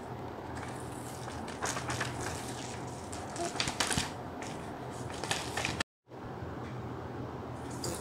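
A sheet of paper rustling and crinkling as it is handled, in a run of short crackles over a steady low hum, with a brief dropout to silence about six seconds in.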